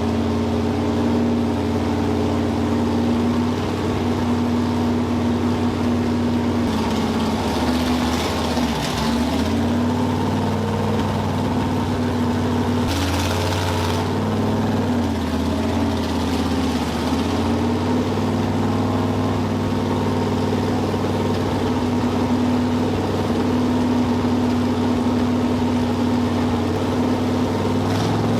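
A 1968 Corvette's 454 big-block V8 idling steadily while it warms up from cold, with no choke fitted. Its speed sags briefly twice, once about 8 seconds in and again around 15 to 17 seconds, and a hiss rises over it for a few seconds at a time.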